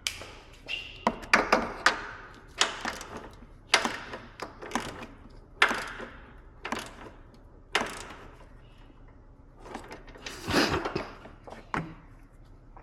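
Hand tools knocking and clanking against a car's front lower control arm and its bolts as the arm is fitted: about a dozen sharp, irregularly spaced knocks.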